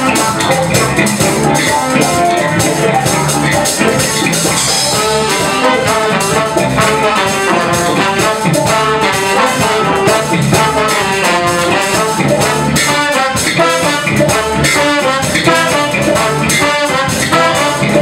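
Live band playing an instrumental passage, with a horn section of trombone, trumpet and saxophones over drums, guitar and bass. The horn lines grow more prominent about five seconds in.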